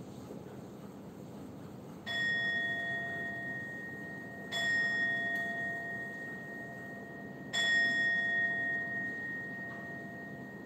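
A Buddhist standing bowl bell struck three times, each stroke ringing on with a clear, high tone for a few seconds, the last the loudest: the bell strokes that open a devotional service.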